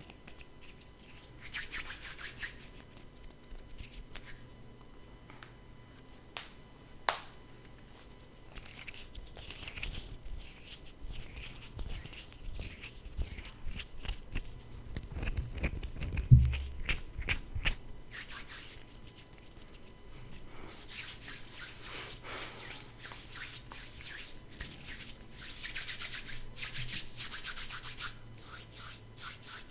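Hands rubbing and brushing together close to a microphone in repeated bursts of quick, hissing strokes, with a sharp click about seven seconds in and a low thump near the middle.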